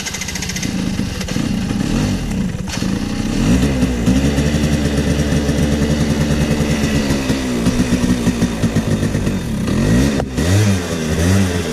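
Off-road motorbike engine running under load, revving up and down with a steadier stretch in the middle and a brief dip about ten seconds in.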